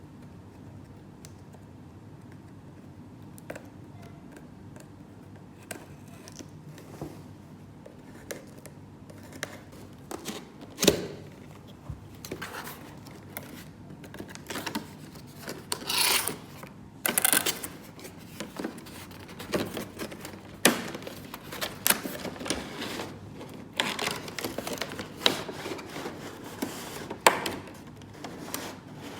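Toy pieces being handled: sharp clicks and taps, sparse at first and much busier after about ten seconds, with a few short rustling noises.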